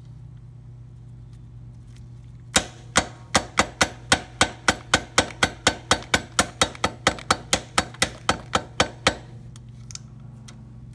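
A small hammer tapping a footpeg pivot pin home through the footpeg bracket of a Buell XB motorcycle: about twenty sharp metal knocks at roughly three a second, starting a couple of seconds in and stopping near the end.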